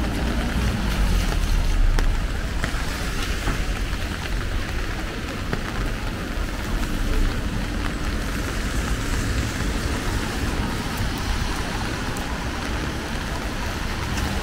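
Steady rain falling, with a low rumble of road traffic underneath that is strongest in the first couple of seconds.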